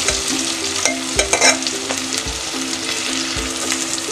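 Sliced onions sizzling as they fry in hot oil in a metal pot, stirred and scraped with a perforated metal spatula, with a few sharp scrapes about a second in. The onions are just starting to colour light pink.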